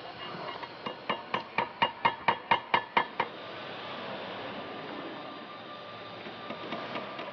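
Hammer nailing roof tiles to the wooden cross pieces of a roof: about ten quick strikes at roughly four a second, each with a short ring, stopping a little after three seconds in.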